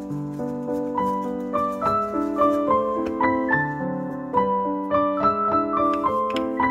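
Background piano music: a gentle melody of many short, overlapping notes.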